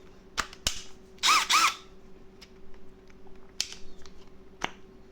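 Milwaukee M12 Fuel drill/driver with a head attachment, triggered in two quick blips so the motor spins up and straight back down, about a second in. Sharp clicks of the tool and its snap-on attachment being handled come before and after.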